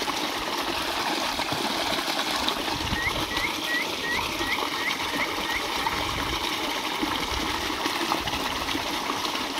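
Water running steadily into a concrete drinking trough. In the middle comes a quick run of about eight short rising chirps.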